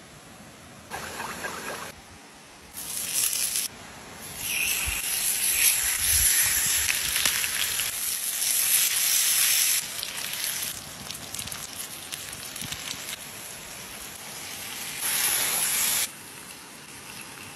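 Salmon fillets sizzling on a hot stone slab over wood coals, in several separate bursts of hissing. The longest and loudest runs from about four to ten seconds in. A shorter burst comes near the end as the fish is basted with sauce.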